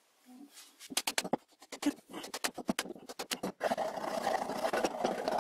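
A run of sharp clicks and knocks, then from about two-thirds in a steady scraping as a hand file is worked over the end of a green-oak mallet handle.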